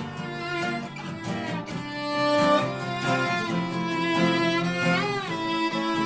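Bowed violin playing a melodic instrumental passage of held notes, with a slide up and back in pitch about five seconds in, over steady lower accompanying notes.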